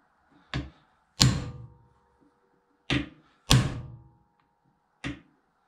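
Hammer striking a steel pin punch to drive a bearing assembly off a driveshaft's splines: a light tap followed by a heavy blow that rings briefly, twice, and another light tap near the end.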